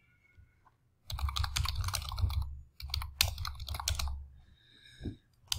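Typing on a computer keyboard in two quick runs of key clicks, then a single sharp click near the end.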